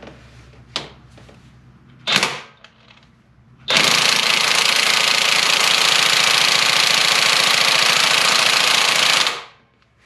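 Craftsman brushless cordless impact wrench hammering for about five and a half seconds on a tight camshaft sprocket bolt of a Toyota 1GR-FE V6 that a breaker bar could not loosen. It stops abruptly near the end.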